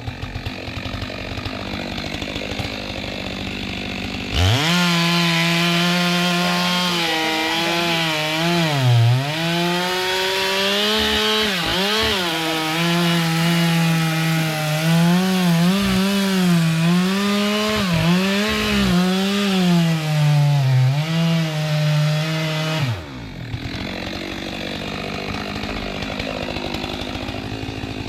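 Two-stroke Stihl chainsaw cutting into kapok wood. The saw runs low at first, throttles up about four seconds in, and its pitch dips again and again as the chain bites under load. It drops back to a low run about five seconds before the end.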